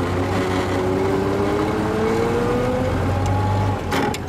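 1920 Locomobile Model 48 under way, its big T-head six-cylinder engine and drivetrain running with a whine that rises slowly in pitch as the car gathers speed. Near the end the engine sound drops away briefly, with a short clatter.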